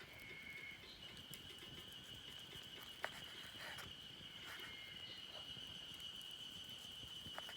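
Insect, likely a cricket, trilling steadily and faintly on one high pitch, with a few scattered sharp clicks, the loudest about three seconds in.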